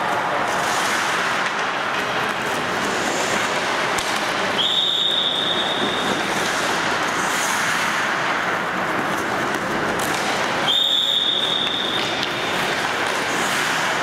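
Ice hockey practice on an indoor rink: a steady wash of skate blades scraping and carving the ice, with a sharp knock of a stick on a puck now and then. A coach's whistle gives two long, steady blasts, about five and about eleven seconds in.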